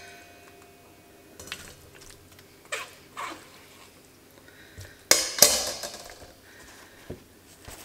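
Kitchen utensils at work: a slotted silicone spoon pressing and scraping braised vegetable solids in a stainless fine-mesh strainer over a stainless bowl, with light scrapes and clicks, then a louder clatter about five seconds in as the solids are lifted out and set aside.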